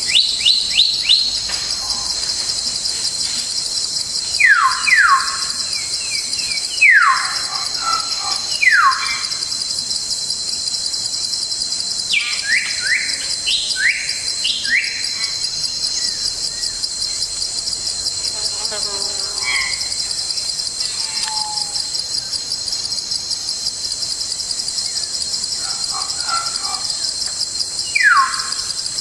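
A steady, high insect chorus with a fast fine pulse runs throughout. Over it a forest bird calls in loud, clear whistles that slide steeply downward, given in twos and threes several times, with a few fainter calls in between.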